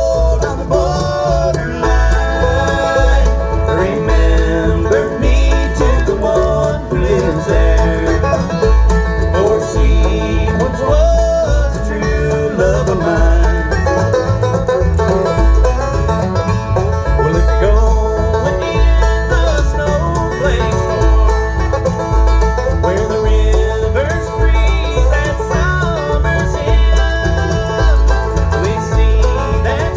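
Country-bluegrass music with banjo and guitar over a steady, even beat.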